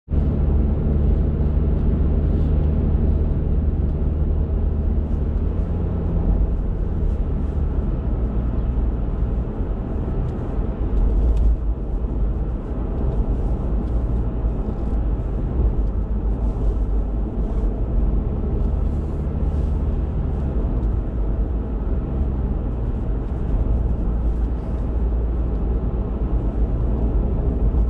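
Car driving on a rough, worn road, heard from inside the cabin: a steady low drone of engine and tyres, with faint scattered ticks over it.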